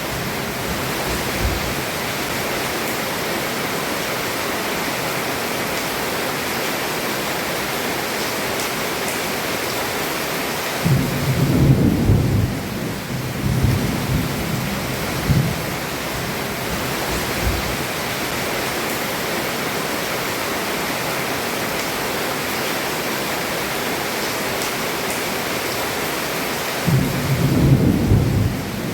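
Heavy rain falling steadily on a roof, a constant hiss. Thunder rumbles low about a third of the way in, grumbling on for a few seconds, and rolls in again near the end.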